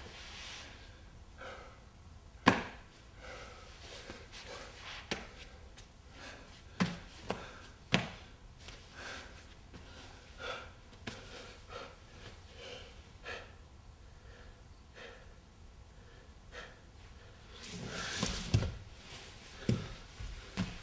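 A dancer's body, gloves and shoes, weighted with lead, knocking, scuffing and sliding on the floor as he crawls and rolls: sharp knocks every few seconds with quieter rustling between, and a louder spell of scraping and thuds near the end as he sprawls.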